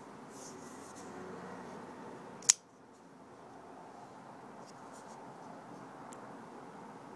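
Custom titanium flipper folding knife opened on its IKBS ball-bearing pivot. After a little handling rustle, the blade flips out and locks with one sharp metallic snap about two and a half seconds in. A few faint ticks of handling follow.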